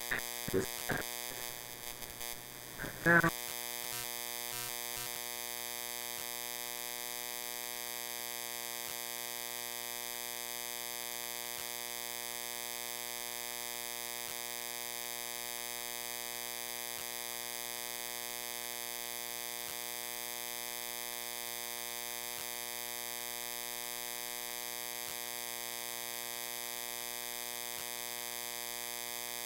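A few light clicks and a sharp knock, then about three seconds in a steady electrical buzz sets in, unchanging, with many overtones.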